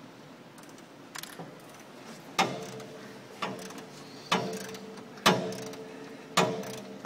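Sharp metallic clicks about once a second, five in all, each with a brief ring, as a rubber radiator hose is worked by hand onto an aluminium GANO inline coolant filter.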